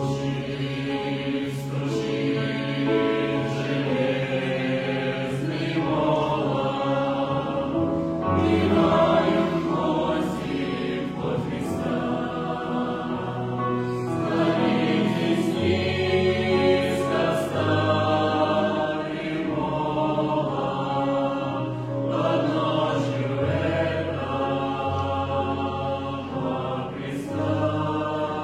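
Choral music: several voices singing sustained chords over a low bass line that moves to a new note every second or two.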